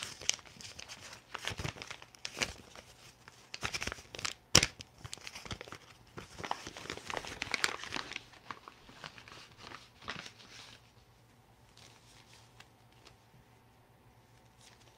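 Paper and foam packaging being torn and crinkled open by hand, a busy run of rips and crackles with one sharp loud rip about four and a half seconds in. It dies away after about eleven seconds to faint handling.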